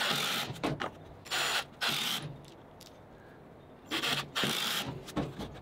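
Cordless impact driver driving screws into a small wooden block, running in several short bursts with a quiet pause of about a second and a half in the middle.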